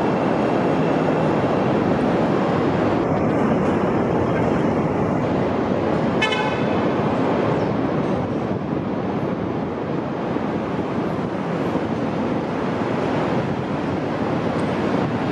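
CTA 7000 Series 'L' train running along the track, a steady rumbling rush of wheels and motors, with a short horn toot about six seconds in.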